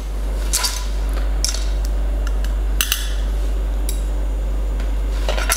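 Metal kitchen tongs clinking against a ceramic plate and clam shells while the spaghetti with clams is arranged, a handful of scattered sharp clinks, over a steady low hum.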